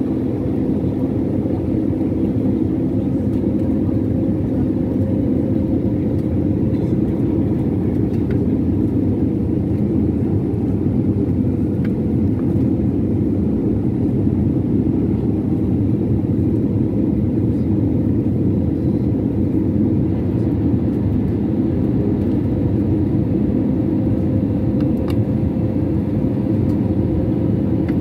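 Steady roar inside a jet airliner's cabin on the approach to landing, heard from a window seat over the wing: the underwing turbofan engine and the rush of air as a deep, even rumble with a faint steady hum on top.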